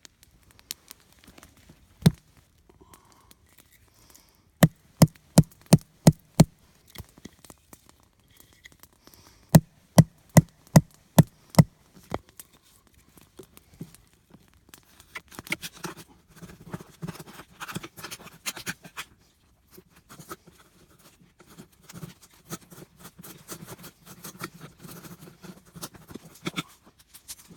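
Sharp knocks, a single one and then two quick runs of about five and six strokes at roughly three a second, followed by a long stretch of irregular scraping and rustling.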